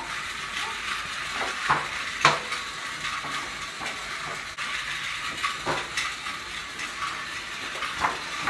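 A paper sign crinkling and rustling as it is shaken and folded, with a steady papery hiss and a few sharp crackles.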